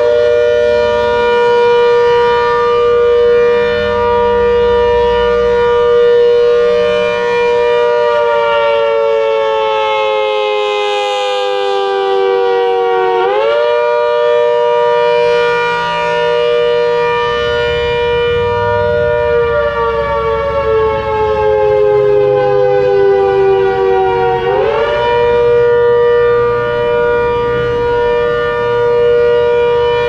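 ACA Hurricane MKII rotating horn siren sounding its attack signal, very loud. It holds its pitch, slides slowly down over several seconds, then snaps back up: twice, about 13 and 25 seconds in.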